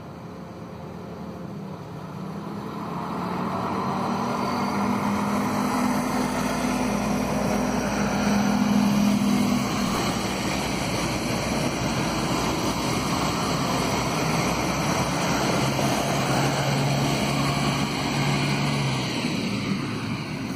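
Red diesel multiple unit passing close by: its diesel engine drone grows louder over the first few seconds, with the rushing of wheels on rails as the cars go past. The engine note drops lower about three-quarters of the way through.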